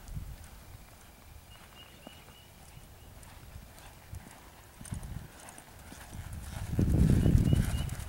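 Hoofbeats of a bay American Quarter Horse mare loping on a dirt arena. They are faint at first and grow loud near the end as she passes close by.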